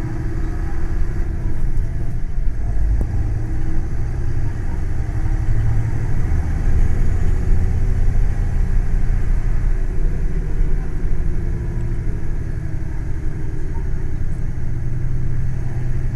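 Hino Blue Ribbon City Hybrid diesel-hybrid bus running: a steady low engine rumble with a held tone, swelling about halfway through and easing again, with a faint rising whine near the middle. The bus is one the uploader labels as making an abnormal noise.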